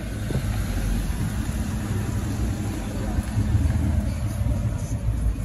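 A car engine running with a steady low exhaust rumble that swells slightly a little past the middle.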